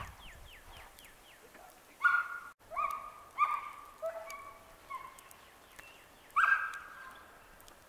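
An animal's calls: a quick run of falling chirps at the start, then six short, high, steady-pitched calls of about half a second each, spaced a second or so apart.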